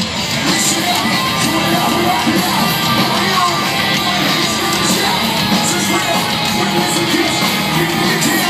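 Live rock band playing over a large outdoor festival PA, with a singer's vocals, heard from inside the crowd.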